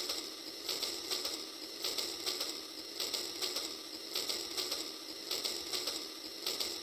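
Battery-powered toy train running on its plastic track: a rhythmic mechanical clicking from its small geared motor and wheels, a few clicks a second.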